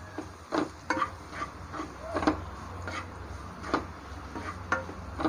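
A spatula scraping and knocking against a nonstick pan as shredded chicken and sautéed onions are stirred together, in short irregular strokes.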